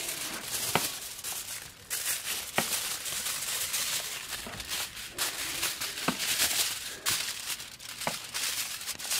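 Aluminium foil crinkling and rustling as it is folded and pressed by hand, with a few sharp clicks among the crackle.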